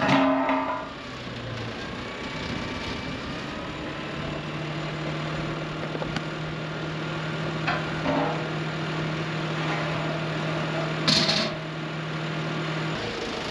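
Telehandler engine running while it holds up the boom lift on its forks. A steady low hum sets in about four seconds in and stops near the end, and there is a short sharp noise about eleven seconds in.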